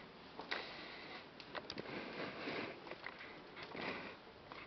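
Soft rustling of a hand stroking a long-haired cat's fur, swelling twice, with a few faint clicks.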